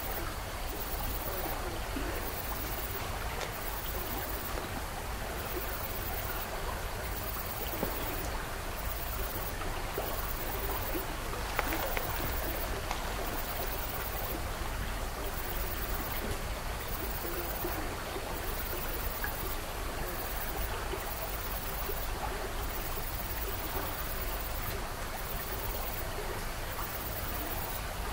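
Steady rushing noise that sounds like flowing water, with a brief faint sound about twelve seconds in.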